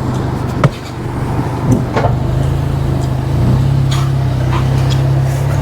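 A car engine running steadily at low speed, a low even drone, with a few short sharp knocks.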